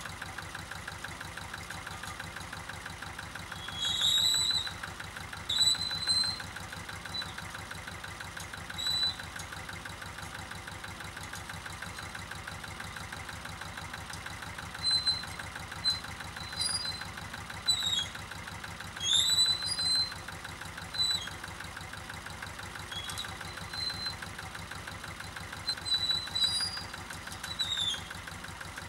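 Zetor 25A tractor's two-cylinder diesel engine running steadily while it powers a pole lift. Short high squeaks come and go over it a dozen or so times, and these are the loudest sounds.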